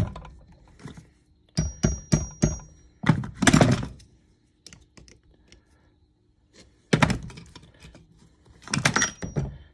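Metal clacks and knocks from brake pads, retaining pins and hand tools being handled at a disc brake caliper, coming in several short clusters, a few with a brief metallic ring.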